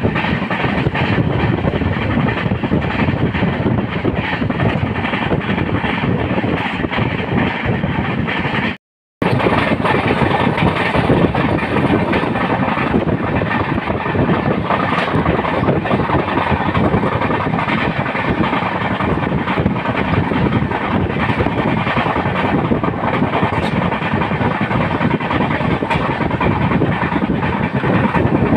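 Janshatabdi Express passenger train running on the rails: a steady rumble with wheel clatter over the track. The sound drops out completely for a moment about nine seconds in.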